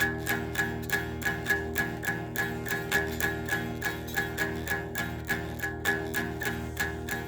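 Guitar music with no singing: a repeating picked pattern of about four notes a second over held, ringing chords.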